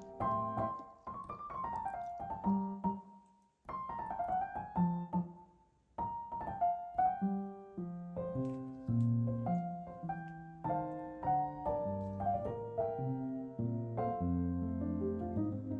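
Background piano music: a gentle melody of single notes over chords, falling almost silent briefly twice early on before carrying on.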